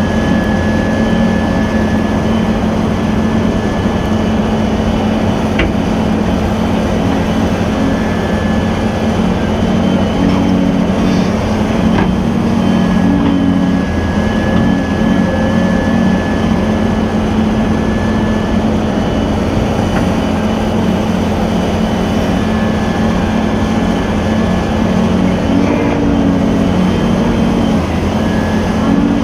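Cat 323 excavator's diesel engine running steadily under digging load as the bucket works into the clay, its note shifting slightly now and then. A thin high whine comes and goes over it, with a few sharp knocks.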